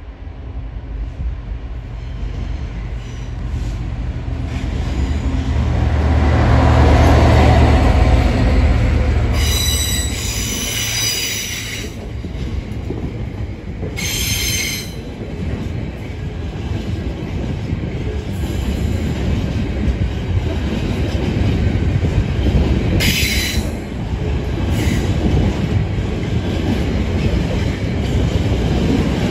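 Class 66 diesel-electric locomotive (EMD two-stroke V12) hauling a container freight train past: the engine's low drone swells to its loudest about seven seconds in as the locomotive passes, then the container flat wagons roll by with a steady rumble. Several short, high-pitched wheel squeals come from the wagons, around ten, fourteen and twenty-three seconds in.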